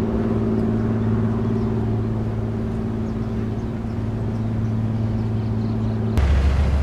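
Steady drone of a crude oil tanker's diesel engine heard across the water, a hum held at a few fixed pitches. About six seconds in it cuts abruptly to a deeper, louder rumble.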